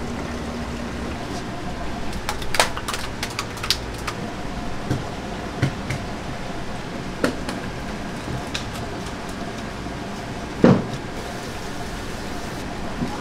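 Seafood market background: a steady hum with scattered sharp knocks and clicks. A quick cluster of clicks comes about two to four seconds in, and the loudest knock comes about three-quarters of the way through.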